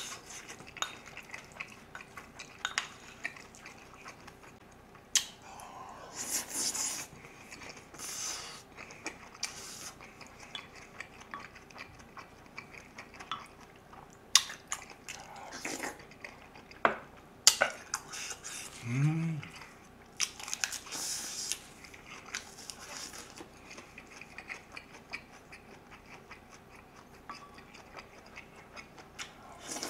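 Close-miked eating sounds: a person chewing and slurping spoonfuls of stew and rice, with sharp clicks of a spoon against a small bowl throughout. A short hummed "mm" comes about two-thirds of the way through.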